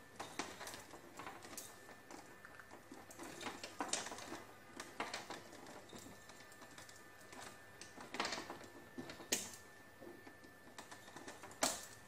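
Hand pliers stripping insulation off an electrical cable: faint, irregular small clicks and snips as the jaws bite and pull at the insulation, with light handling of the wire.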